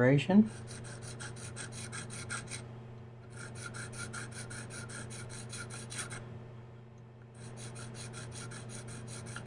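KME tapered diamond rod rubbed in quick short strokes against a knife's serration, a rapid rasping at about five strokes a second. It comes in three runs with two brief pauses. The rod is sharpening a serrated edge, one serration at a time.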